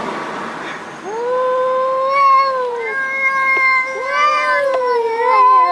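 A cat making long, drawn-out meows, three or four in a row, each rising in pitch at the start and sliding down at the end, the last one short and wavering.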